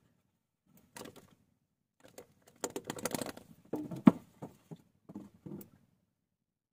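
Fishing gear handled in a boat: scattered clicks and rustles, with a denser spell of clatter and one sharp knock about four seconds in.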